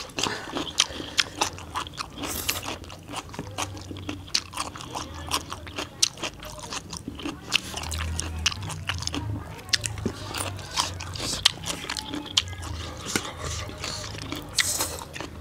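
Close-up eating sounds of two people chewing chole bhature, puffed fried bread with chickpea curry: a steady run of wet mouth clicks and lip smacks.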